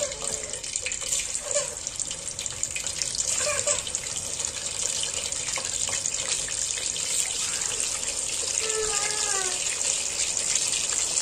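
Tap water running into a sink, a steady splashing hiss that grows a little louder after the first couple of seconds.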